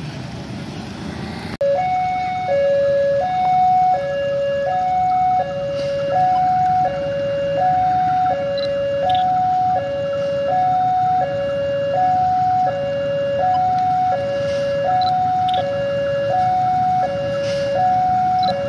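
An electronic railway level-crossing alarm sounding a steady two-tone hi-lo warning, switching between a lower and a higher note about every three-quarters of a second as a train approaches. It starts abruptly about a second and a half in, after low road-traffic noise.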